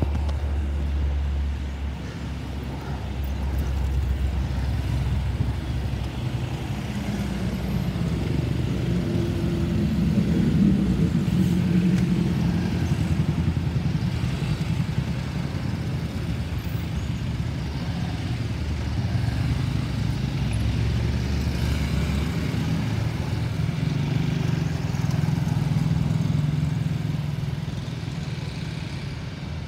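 A steady low rumble of road traffic, with the deep drone of a Lockheed C-130 Hercules four-engine turboprop passing overhead. The drone swells about ten seconds in and again near the end.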